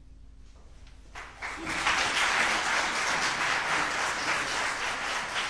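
The last note of a choir fades away, then audience applause breaks out about a second in and quickly swells into steady, full clapping.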